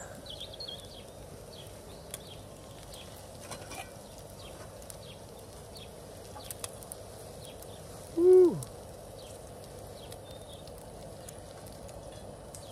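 Sausages and bacon sizzling faintly on a gas grill plate, with small scattered crackles. About eight seconds in, one short loud call rising then falling in pitch, from an animal or a person, stands out over it.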